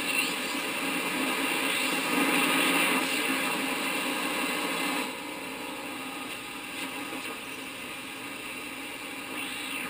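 Hallicrafters S-108 tube shortwave receiver's speaker putting out 40-metre band static and interference as the dial is tuned slowly across the band, with whistles sliding in pitch as stations are passed. The noise drops noticeably quieter about halfway through.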